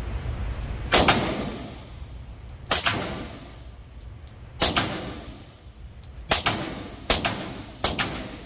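Six suppressed shots from a B&T 9mm carbine fitted with a suppressor, likely firing subsonic rounds: four spaced a couple of seconds apart, then the last three quicker, each shot ringing on in a reverberant indoor range.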